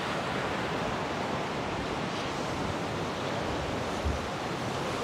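Steady wash of sea waves breaking against rocks, mixed with wind on the microphone.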